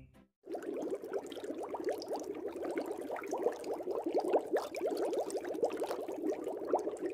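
Aquarium water bubbling: a dense, steady stream of small bubble pops, starting about half a second in.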